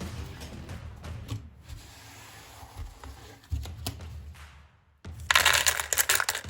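Quiet background music, then about five seconds in a short loud burst of dense rustling from handling the game's playing cards.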